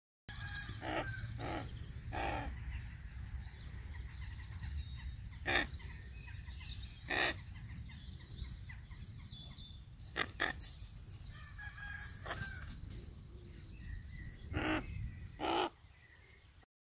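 Raven giving short calls, about ten at irregular intervals, over a steady low rumble.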